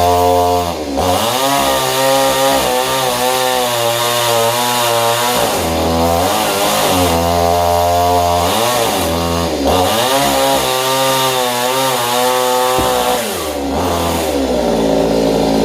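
Chainsaw running hard while cutting wood, its engine pitch sagging and climbing back about four times as the throttle eases and opens and the chain loads in the cut.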